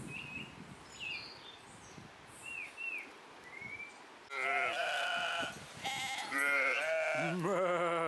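Sheep bleating: about four loud wavering bleats starting about halfway, one of them lower-pitched, after a few faint high chirps.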